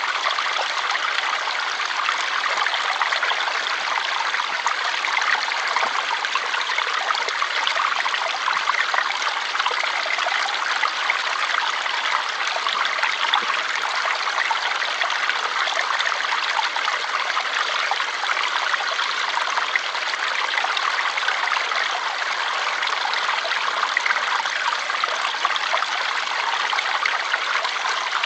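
Water flowing steadily in a stream, an even splashing and trickling rush without a break.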